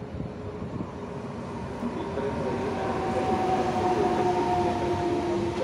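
Electric locomotive hauling a regional passenger train running past close by, its rumble and a steady whine growing louder as it draws level.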